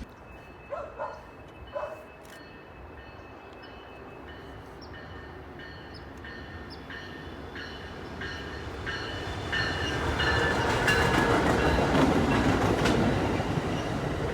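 A train approaching on the tracks, its rumble growing steadily louder and loudest near the end, with a bell ringing evenly about three strikes every two seconds. Two or three short tones sound around the first two seconds.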